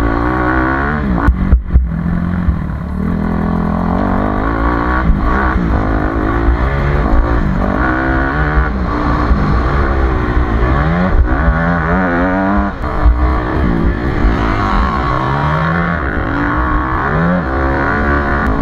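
HM CRE 250 F single-cylinder four-stroke dirt bike engine at full throttle, its pitch climbing repeatedly and dropping back as the rider shifts and rolls on and off. There are a few sharp knocks about a second and a half in.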